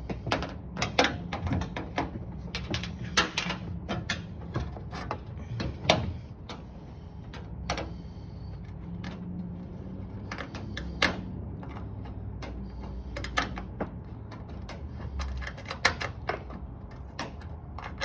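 Ratchet wrench clicking in short irregular runs, with metal taps and knocks, as it tightens the bolt at a corner of a top-load washing machine's top.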